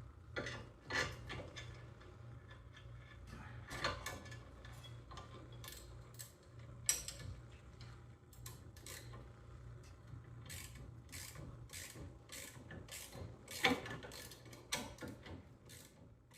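Scattered sharp metallic clicks and clinks of hand tools on car suspension parts, with a quicker run of clicks about two-thirds of the way through, over a steady low hum.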